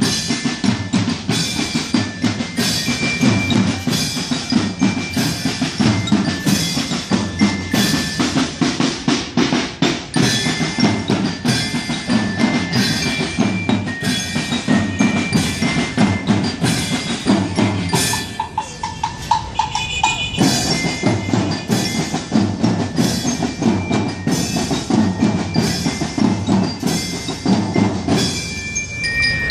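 Marching band drums beating a steady march rhythm, with high ringing bell notes over the beat. The drumming eases briefly about two-thirds of the way through, then picks up again.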